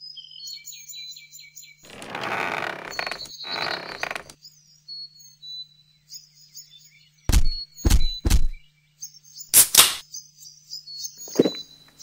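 Birds chirping in short repeated calls over a low steady hum. There are two stretches of rushing noise about two and three and a half seconds in, and a run of sharp thuds, the loudest sounds, from about seven to ten seconds in.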